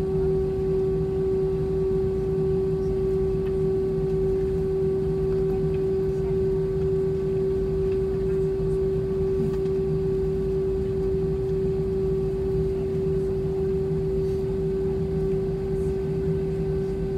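Steady cabin hum of a parked Airbus A320: an even rush of air and systems noise under a constant mid-pitched tone, with no change in pitch or level.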